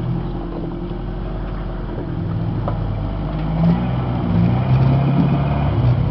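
Off-road vehicle engine running at low revs, getting louder and slightly higher in pitch in the second half as the throttle is worked.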